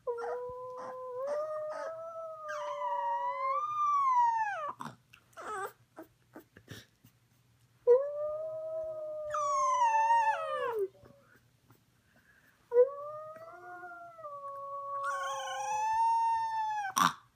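Boxer puppy howling along with a woman's howls: three long, wavering howls, each starting with the lower human voice, which the puppy's higher howl joins partway through. Short soft sounds fall between the first and second howl.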